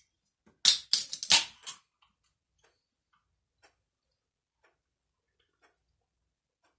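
A short burst of four or five sharp clattering handling noises about a second in, then only faint scattered ticks.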